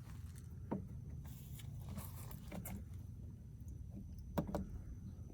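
Scattered light clicks and knocks from parts being handled and fitted on a Jeep Wrangler TJ door, the sharpest a knock about four and a half seconds in, over a steady low hum.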